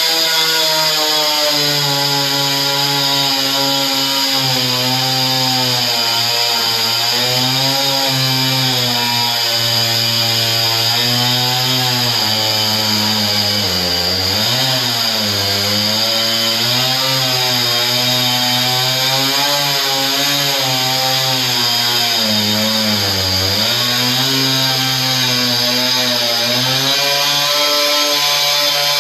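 Chainsaw running at high throttle while cutting through a large carpet roll, its engine pitch wavering throughout as the chain loads up. The pitch sags clearly about halfway through and again some eight seconds later as the saw bogs in the cut.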